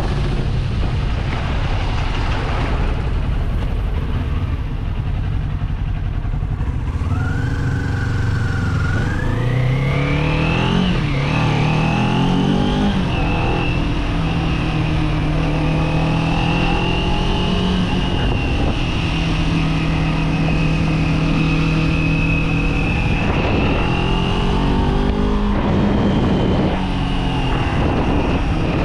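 Kawasaki Z400 parallel-twin engine under way: it accelerates with a rising pitch, drops briefly at a gear change about eleven seconds in, pulls up again, then holds a steady cruising speed, easing off slightly near the end.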